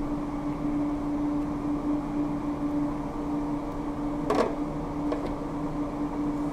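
Steady machine hum with one constant tone, and a short clatter about four seconds in.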